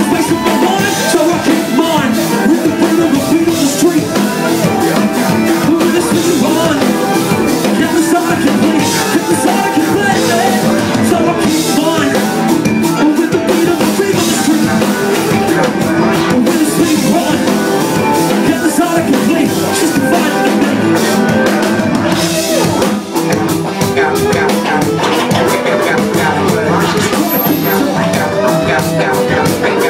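Live hip hop band playing loud: drum kit and electric guitar, with an MC rapping into a microphone over it.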